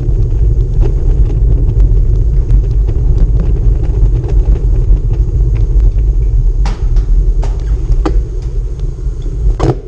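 Bicycle rolling over cobblestones, its tyres and frame giving a loud, steady rumble and rattle that shakes the bike-mounted camera, with a few sharper knocks from bumps in the paving in the second half.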